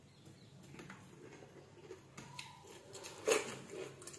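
Quiet eating sounds: chewing and small mouth smacks, with fingers mixing rice on steel plates, and one sharper click about three seconds in.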